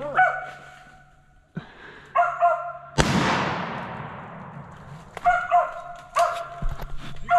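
Mountain cur dogs barking at a treed squirrel, broken about three seconds in by a single shotgun shot that echoes through the woods as it fades, then the dogs bark on.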